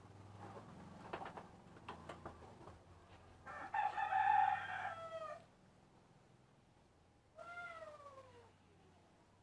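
A rooster crowing once, a long held call that drops in pitch at the end, about three and a half seconds in, followed about seven and a half seconds in by a shorter call that falls steadily in pitch. A few light taps and knocks come before the crow.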